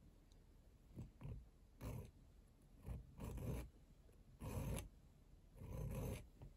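Needle file worked back and forth across a small brass ring, in several short, irregular strokes.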